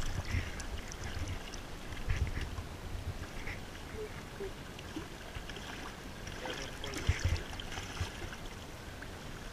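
Shallow water sloshing with small splashes as a fish thrashes in a muddy puddle at the water's edge, with low wind rumble on the microphone. A few sharper splashes stand out, around two seconds in and again about seven seconds in.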